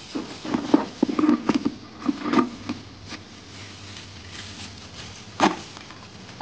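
Live crayfish clicking and scraping their shells and claws against a plastic bucket and against each other: a flurry of short clicks and rustles in the first few seconds, then one sharp click near the end.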